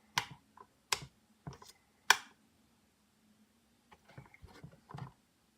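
Sharp plastic clicks, four spread over the first two seconds and a quicker run of smaller ones near the end: a Redmond electric kettle's power switch and base being worked while the kettle fails to switch on.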